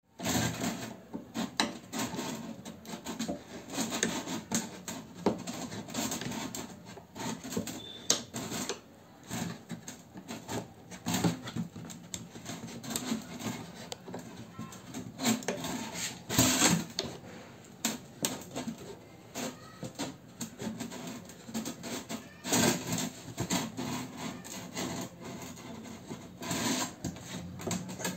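Box-cutter blade scraping and cutting at the hard plastic neck of a jerry can, in quick, irregular strokes.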